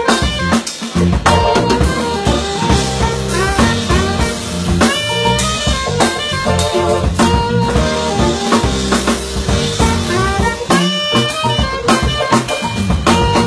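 Live jazz band playing: drum kit, bass, keyboards and saxophones together, with the drum hits steady and to the fore.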